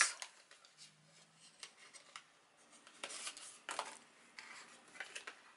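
Scrapbook album's cardstock pages, tags and small cards rustling and sliding against each other as they are handled, in short irregular scrapes, the most distinct about three seconds in and again near the end.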